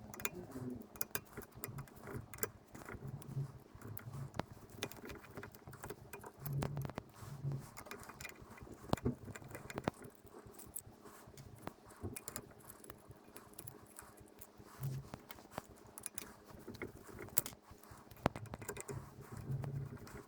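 Irregular metallic clicks, clinks and light knocks of tools and steel parts being handled while a Nutool CH10 hobby drill press is taken apart.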